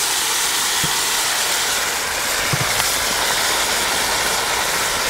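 Venison goulash meat and its juices sizzling loudly in a hot cast-iron Dutch oven on tomato paste being roasted, a steady hiss as the liquid flashes to steam. A couple of light knocks, about a second and two and a half seconds in, from the wooden spoon and bowl against the pot.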